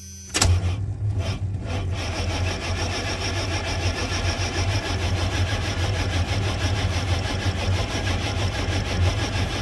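Engine cranking over on the starter motor with a steady, even rhythm, starting about half a second in and never catching. It is a crank-no-start: a newly fitted distributor ignition module has not cured it, and the owner suspects an electrical fault such as a bad ground.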